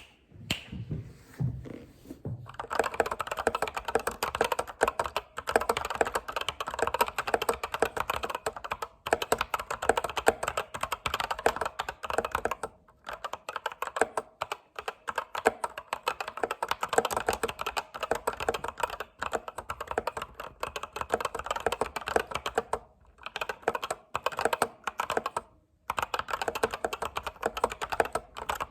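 Fast typing on a computer keyboard: a dense, continuous run of clacking keystrokes with a few short pauses, starting after some soft thumps in the first couple of seconds.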